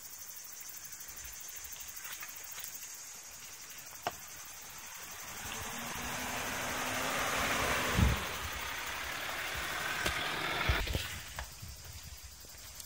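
Land Rover Discovery 4x4 crawling down a rocky track and passing close by: a low engine note and tyres crunching over stones grow louder, with a thump about eight seconds in, then fade as it moves away.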